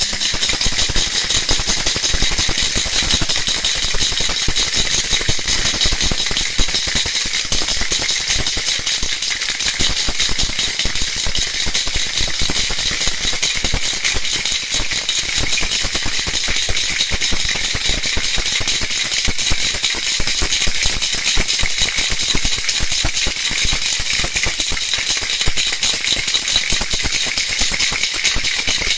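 Cicada call: a steady, high buzz made of very rapid pulses, kept up without a break, played as a lure to attract cicadas.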